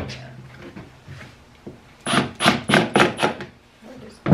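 A cordless drill runs briefly at the start, driving a screw into the wooden birdhouse. A short burst of voices follows about two seconds in, and a sharp wooden knock comes at the end.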